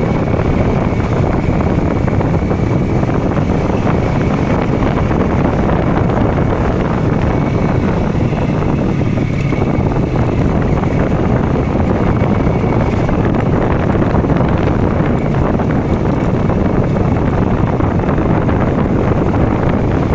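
KTM Duke motorcycle engine and exhaust running steadily while riding, mixed with heavy wind rush on a chest-mounted microphone.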